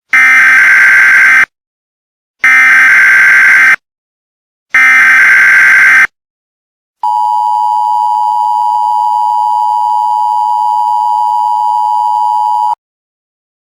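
Emergency Alert System SAME header: three identical bursts of warbling digital data, each about a second and a half long, then after a short pause a steady two-tone attention signal lasting about six seconds that cuts off abruptly. The header bursts carry the alert's coded details; the attention tone signals that an emergency message follows.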